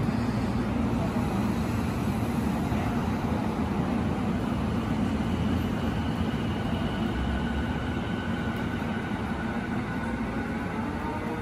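JR East E233-series electric commuter train pulling out and accelerating away: a steady low rumble of wheels on rail, with the traction motors' whine rising in pitch as it gathers speed.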